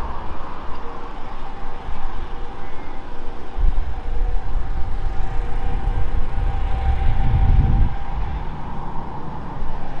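A steady engine hum, with gusts of wind buffeting the microphone that grow louder about halfway through.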